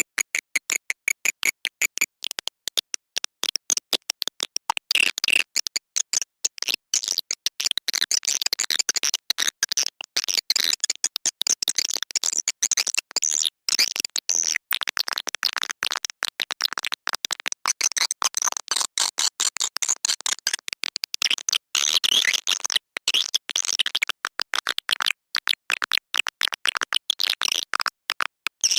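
Swiftlet lure call recording: a dense, rapid chatter of high-pitched swiftlet chirps and twitters, in an even pulsing run for the first couple of seconds and then thicker and more overlapping. The track is played in swiftlet houses to draw edible-nest swiftlets in to roost and nest.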